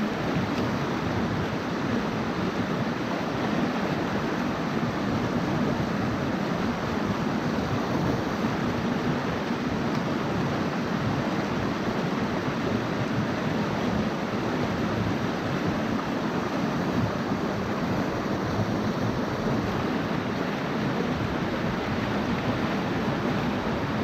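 Mountain stream water rushing steadily over rocks, a constant even noise close to the microphone.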